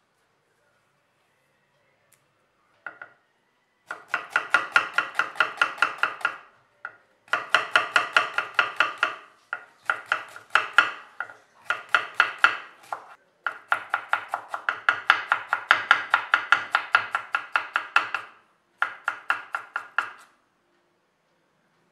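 Knife rapidly chopping onion on a wooden chopping board: quick, even strokes, about six a second, in several long runs with short pauses.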